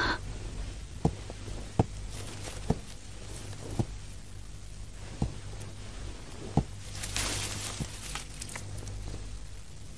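A series of soft, single knocks at uneven intervals of about a second over a steady low hum, followed near the end by a brief dry rustle.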